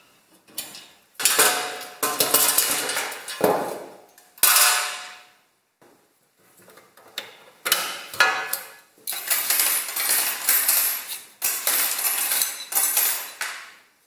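An old fan heater being taken apart: its thin steel grille rods and wire handle scrape and clink against the sheet-metal housing as they are worked loose and pulled out. It is a string of separate metallic scrapes and rattles, several with a ringing tail.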